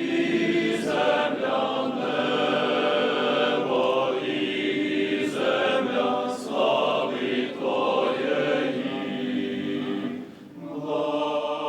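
A choir singing, in long held notes with short breaks between phrases and a brief pause near the end.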